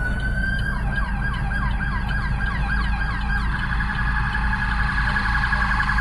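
Electronic emergency-vehicle sirens approaching. A wail holds a high pitch while a second pattern yelps in fast falling sweeps about four times a second, and about halfway through it changes to a rapid warble, over a steady low rumble.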